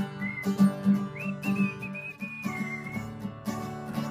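Fender acoustic guitar strummed in a steady rhythm, with a whistled melody over it: a single high tone that slides up and down in pitch, heard briefly early on and again through the middle.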